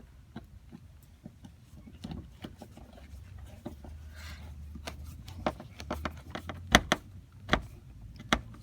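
A screw being driven back into a car's plastic interior door handle with a screwdriver, with scattered clicks and knocks of tool and plastic trim that grow louder and sharper in the second half.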